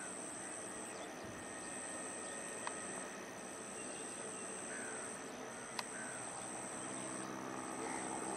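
Insects buzzing in a steady high-pitched drone broken by short gaps every second or so, with a few bird chirps. A jet engine's low hum builds up near the end.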